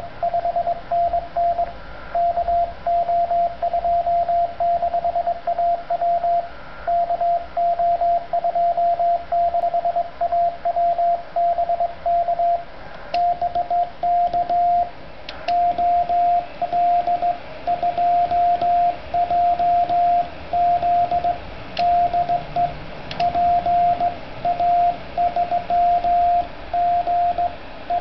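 Morse code (CW) from a Yaesu FT-857 transceiver tuned to 50.085 MHz on the 6 m band: a steady-pitched beep keyed on and off in dots and dashes over a constant hiss of band noise. It is a sporadic-E contact.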